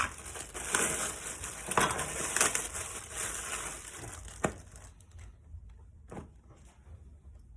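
Packaging crinkling and rustling as a T-shirt is unwrapped and handled. It dies down to a few faint rustles about five seconds in.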